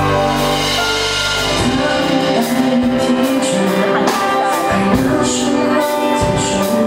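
Live pop song played by a band with electric guitars. A male vocalist comes in singing about two seconds in, over the sustained band accompaniment.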